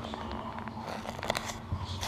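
The tour boat's motor running steadily with a low hum, with a few faint clicks and knocks about a second in.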